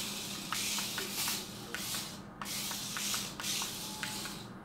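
Small toy RC stunt car's electric motors whirring in bursts about a second long as it is driven across a tile floor, with a few light clicks.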